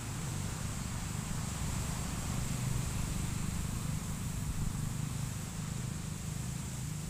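Steady low engine drone, with a faint high-pitched hiss above it.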